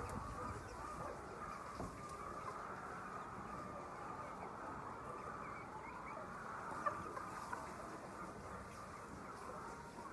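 A large flock of chickens calling together in a continuous, dense chorus of overlapping clucks and peeps. A brief sharp knock comes about seven seconds in.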